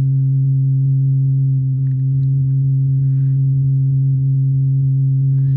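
Homemade breadboard oscillator synth holding a steady, loud low drone: one unchanging pitch with a few overtones above it.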